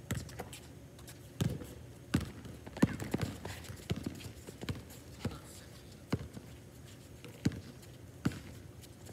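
Basketball bouncing on an outdoor hard court as it is dribbled: a string of uneven thuds about every half second to a second, loudest around two to three seconds in.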